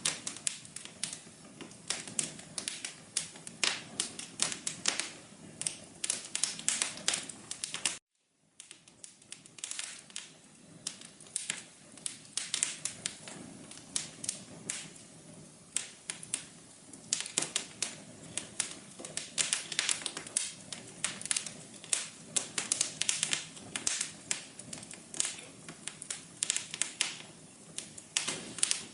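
Wood fire crackling, with many sharp irregular pops and snaps over a soft hiss. The sound cuts out for a moment about eight seconds in and fades back up.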